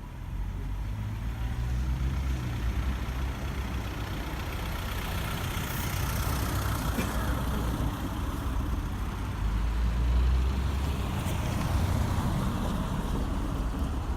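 Road traffic noise: a motor vehicle passes, its sound swelling and fading over a few seconds above a steady low rumble.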